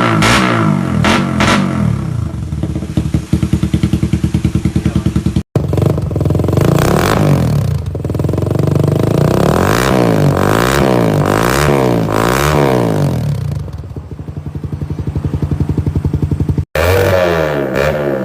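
Suzuki Raider 150 single-cylinder motorcycle engines revved repeatedly through aftermarket mufflers, pitch climbing and falling with each blip of the throttle, in three clips cut together. Twice the engine drops back to a slow, pulsing idle between rev bursts.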